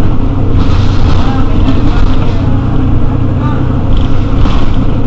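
Mercedes-Benz Citaro city bus's diesel engine running with a steady low drone.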